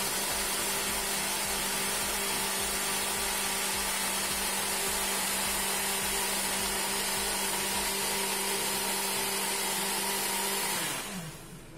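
Electric countertop blender motor running steadily with a constant hum, blending strawberries, blueberries, yogurt and honey into a paste. The blender is switched off about eleven seconds in and winds down, its hum falling in pitch.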